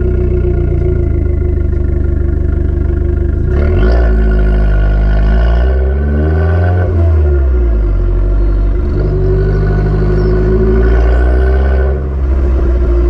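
Abarth 595 Turismo's stock 1.4 turbocharged four-cylinder engine and exhaust running, with the revs rising and falling. The note changes suddenly about a third of the way in and briefly drops near the end.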